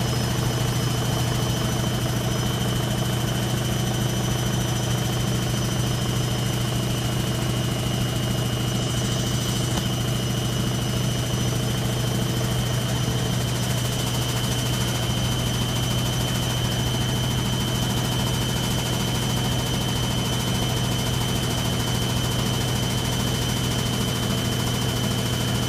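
Indesit 860B washing machine in its final spin, the drum turning at a steady speed: a constant low hum with a thin high whine over it.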